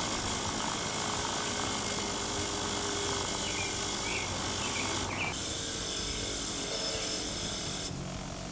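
Bench grinder running, grinding rust off an old pipe wrench. The sound changes about five seconds in, and it drops a little in level near the end.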